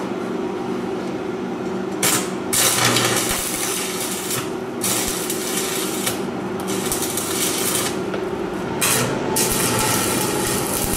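Electric arc welder crackling and hissing in a series of short welds, each about one to two seconds long with brief pauses between, starting about two seconds in. A steady low hum runs underneath.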